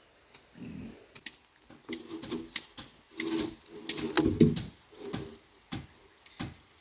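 Scattered sharp clicks and knocks at an irregular pace, with faint, low voices in the background.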